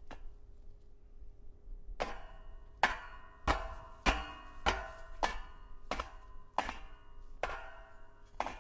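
A slow run of single struck notes on a pitched instrument, each a different note ringing briefly and dying away, about one a second, starting about two seconds in.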